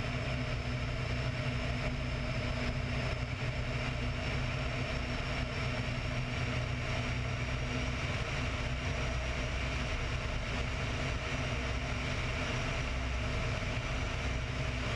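Radial engine of an open-cockpit biplane running steadily in flight, with a constant rush of air past the wing-mounted camera.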